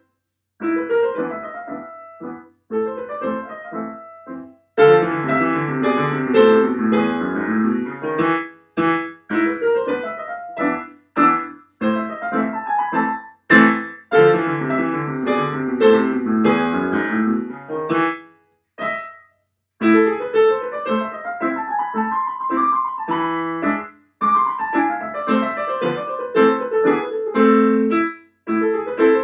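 Solo piano playing fast, sweeping runs and full chords, broken by a few brief pauses.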